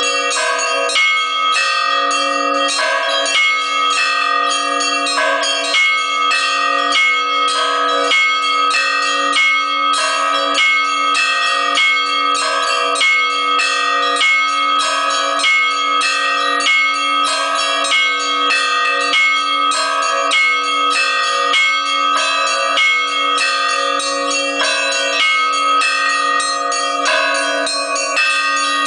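Orthodox church bells of several sizes rung together in a continuous rhythmic pattern, several quick strikes a second on the smaller bells over the lasting hum of a lower bell.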